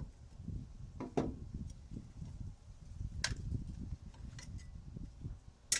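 Scattered knocks and clicks of hand work on a microwave's metal casing and parts, over a low rumble of handling. There is a sharp click about three seconds in and another near the end.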